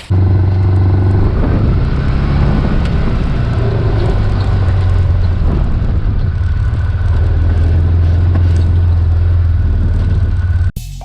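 Small petrol engine running steadily at a near-constant speed, loud and close, cutting off suddenly near the end.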